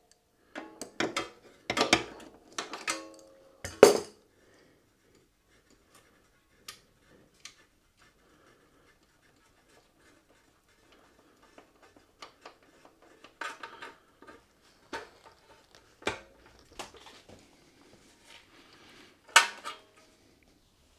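Metal hand tools clinking and clanking on a motorcycle's rear axle and axle nut as the rear wheel is taken out. A cluster of sharp, briefly ringing clanks comes in the first few seconds, then a lull, then scattered clinks, the loudest one near the end.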